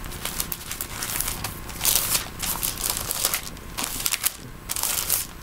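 Bible pages being leafed through: a run of quick paper rustles and flicks, with louder page turns about two seconds in and near the end.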